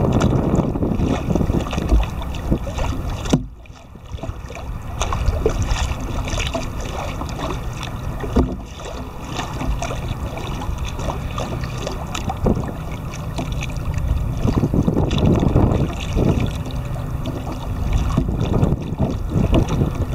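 Wind buffeting the microphone of a camera mounted on a kayak, a continuous rough rumble, with small waves slapping against the hull. The wind eases briefly about three and a half seconds in.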